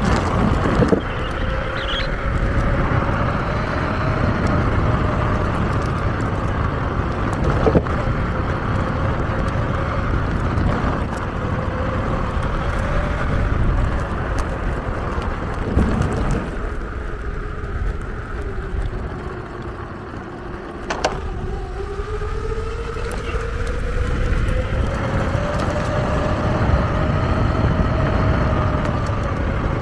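Electric skateboard motors whining at a steady pitch over the rumble of the wheels rolling. In the second half the whine slowly drops as the board slows, then climbs back as it speeds up again.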